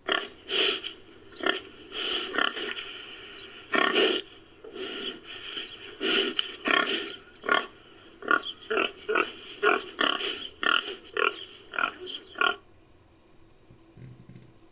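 Domestic pig grunts and squeals in a rapid, uneven series of short calls with a few longer ones, stopping about 12.5 seconds in. They are pig recordings edited into a collared peccary sound effect.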